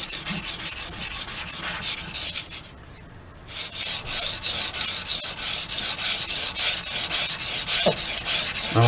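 Knife blade being stroked quickly back and forth on 320-grit sandpaper stretched over a long flat sharpening board, a dry scraping sound. The strokes stop briefly about three seconds in, then carry on.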